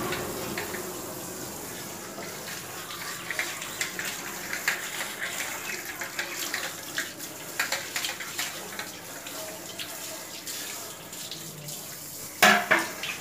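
Tap water running steadily onto a concrete floor while ceramic plates and steel bowls are rinsed by hand, with frequent light clinks of the dishes and a louder clatter near the end.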